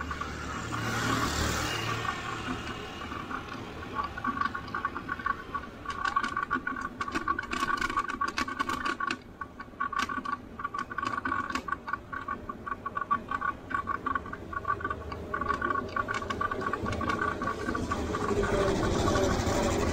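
Bicycle and its handheld camera rattling and clicking over the road while riding, with a two-pitched whine that comes and goes. A motor vehicle's engine grows louder near the end.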